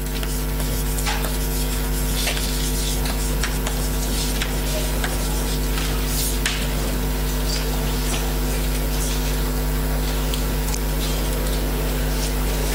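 Chalk scratching and tapping on a blackboard as a heading is written, a few faint clicks scattered through, over a loud, steady electrical hum.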